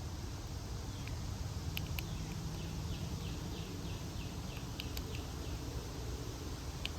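A songbird singing a quick run of about ten falling whistled notes, with a few sharp chip calls, over a steady low outdoor rumble.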